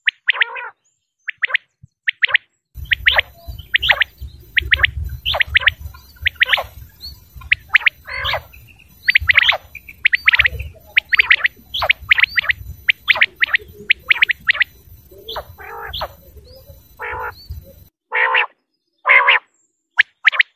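Quail (batair) calling: a rapid run of short, sharp whistled notes, each dropping quickly in pitch, often in quick pairs and threes. A low rumble of background noise sits behind the calls for most of the stretch, dropping out near the end.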